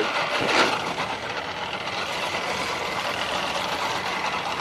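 Boat engine running steadily in forward gear as the boat turns, with water and wind noise; a brief louder rush about half a second in.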